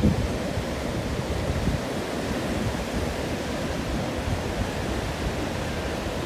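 Steady wind buffeting the microphone over the continuous wash of ocean surf.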